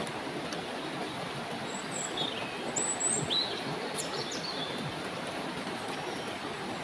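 Steady rush of a shallow stream flowing over rocks, with several short chirping bird calls between about two and four seconds in.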